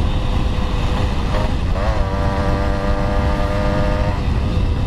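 Wind rush and the engine of an old motorbike while riding along a road, a dense steady rumble. From about two seconds in, a held pitched tone rises briefly, stays level for about two seconds, then stops.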